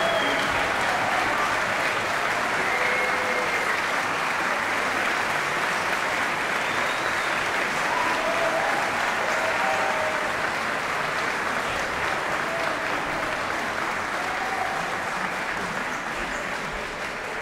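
Audience applauding steadily after a concerto, slowly dying down toward the end.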